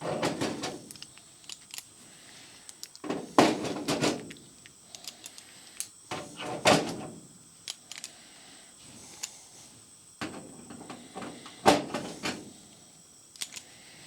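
Irregular clunks, knocks and rattles of tools and metal parts being handled on a workbench, in several separate bursts.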